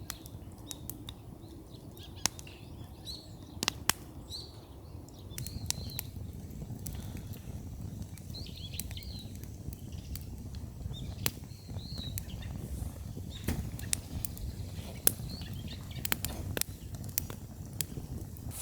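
Wood bonfire crackling, with sharp pops scattered irregularly over a steady low rumble. Small birds chirp faintly at times.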